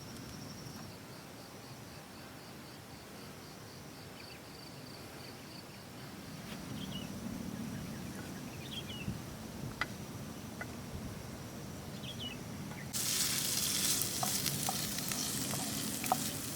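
Insects trill in a steady pulsing tone with a few short chirps, then about three-quarters of the way through a loud sizzling hiss starts suddenly: food frying in a pan.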